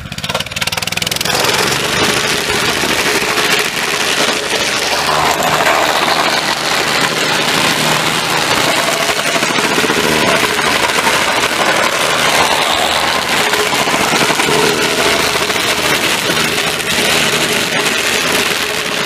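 Vibratory plate compactor running over brick pavers, its base plate fitted with a polypropylene pad. A loud, steady engine and vibration noise rises about a second in and drops away at the end.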